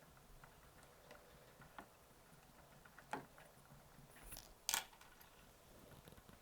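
Faint, scattered clicks and taps of small parts and tools being handled at close range, with two sharper clicks a little past three seconds and just before five seconds.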